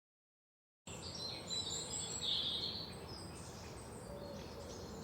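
Birds chirping over a steady outdoor background hiss, cutting in suddenly about a second in after dead silence.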